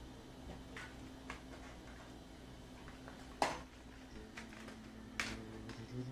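Scattered sharp clicks and knocks as plastic CD cases are handled and knocked together, the loudest about three and a half seconds in and two more near the end, over a faint steady hum.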